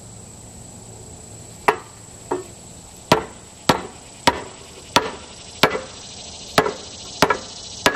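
Red plastic mallet striking the steering knuckle of a Dana 60 front axle to shock loose a stuck kingpin cover. About ten sharp knocks at a steady pace, roughly one every two-thirds of a second, beginning a couple of seconds in.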